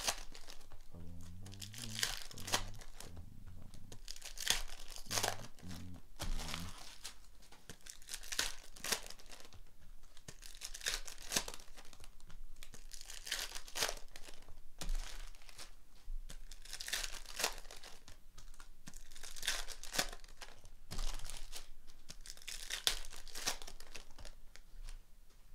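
Foil trading-card pack wrappers crinkling and tearing as they are ripped open by hand, again and again, with the cards inside being handled.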